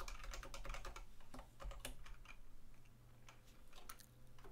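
Computer keyboard typing: a soft, irregular run of key clicks as a line of code is typed.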